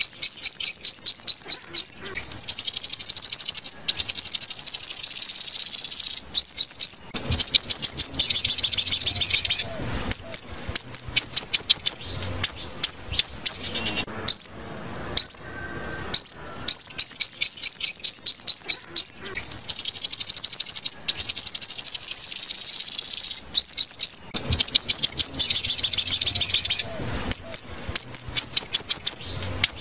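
Recorded sunbird song: rapid series of high-pitched chirps and fast trills in quick succession. The same sequence of phrases repeats about every 15 seconds, as a looped lure track.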